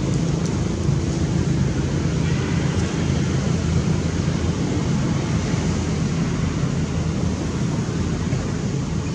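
Steady low rumble with a constant hum underneath, unbroken throughout.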